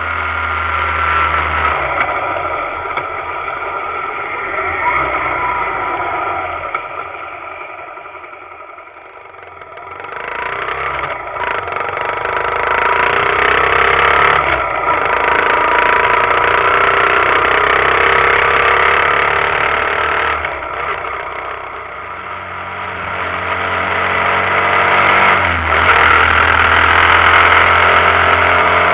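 Suzuki GZ125HS motorcycle's single-cylinder four-stroke engine running under way, heard muffled through an action camera's waterproof housing. The engine note eases off to its quietest about eight or nine seconds in, picks up again from about ten seconds, eases once more around twenty-two seconds and climbs again near the end.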